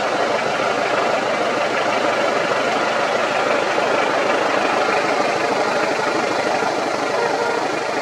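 A vehicle's engine idling steadily.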